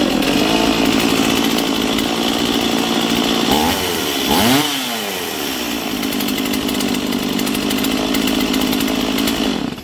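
Small Stihl two-stroke chainsaw running on its newly fitted ignition module. Its speed dips and climbs back about four to five seconds in, and the engine cuts off suddenly near the end.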